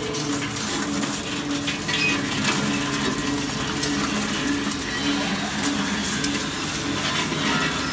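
Enerpat scrap metal shredder running, its rotary disc cutters tearing metal wire mesh: a humming drone that swells and fades every second or so, with frequent sharp metallic snaps and clinks as the wires break.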